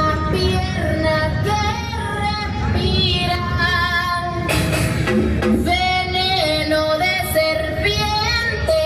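Music with a high singing voice over heavy bass.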